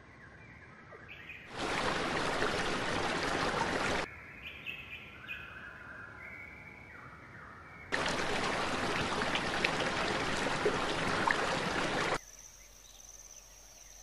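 Rushing water, loud and steady, comes in twice, for about two and a half seconds and then about four seconds. Between the two, small birds chirp faintly. Near the end a steady high tone sounds.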